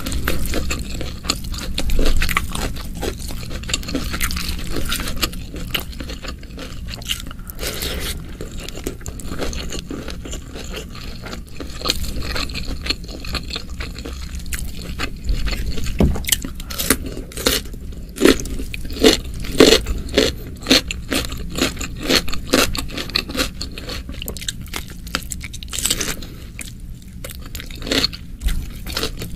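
Close-up eating sounds of spicy oseng mercon beef with rice eaten by hand: repeated wet chewing, biting and crunching, with fingers scraping and squishing through the food.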